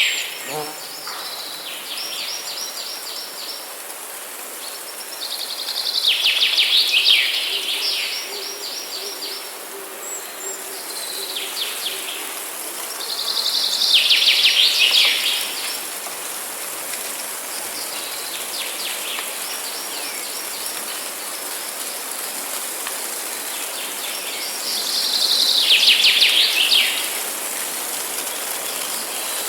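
Songbirds singing in a forest: a loud phrase of rapid trilled notes, about two seconds long, comes three times, with fainter trills between, over a steady background hiss.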